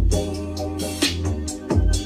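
Electronic music with a drum-machine beat: sharp kick hits about a second apart over held deep bass notes and sustained pitched tones.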